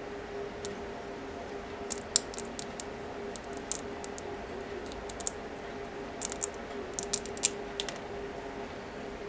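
Hobby knife blade scraping and trimming a small 3D-printed plastic part: irregular clusters of sharp little clicks and scrapes, starting about two seconds in, over a faint steady hum.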